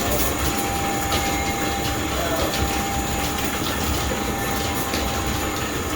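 Vintage belt-driven workshop machinery running: an overhead line shaft and flat leather belts turning, giving a steady mechanical clatter with a faint steady whine.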